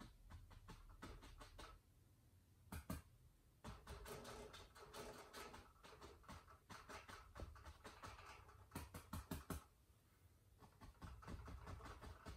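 Faint, irregular taps of a paintbrush dabbed lightly onto a canvas wet with oil paint, with a few louder taps about three seconds in and again near nine seconds, and softer brushing in between.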